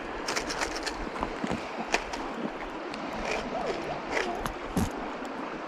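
Creek water running steadily, with scattered small clicks and knocks and a few faint distant voice sounds.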